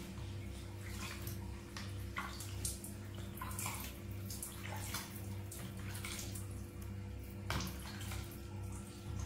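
Water splashing and dripping in short, irregular bursts as a newborn monkey is bathed by hand, over a steady low hum.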